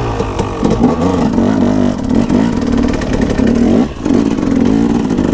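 Dirt bike engine running and revving, its pitch rising and falling with the throttle, with a brief drop in loudness just before four seconds in.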